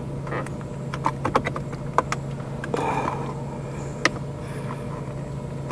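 Scattered light plastic clicks and taps as fingers press on the retaining clips of a Mazda CX-5's console USB hub and its plastic trim, with a steady low hum underneath.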